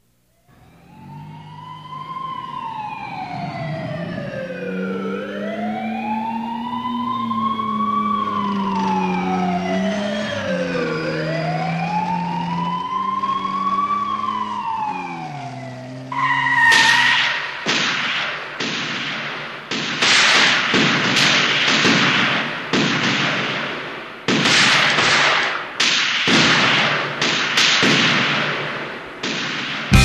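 Siren wailing, sweeping slowly up and down in pitch over several long cycles. About halfway through it gives way to loud, repeated percussive hits of music.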